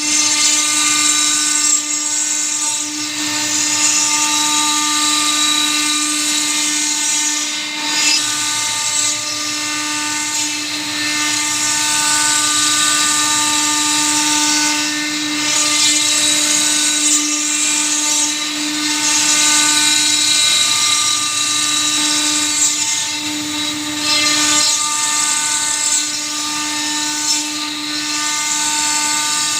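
CNC router spindle running at a steady high-pitched whine while cutting a logo, the hiss of the cut swelling and easing every few seconds as the bit moves through the material.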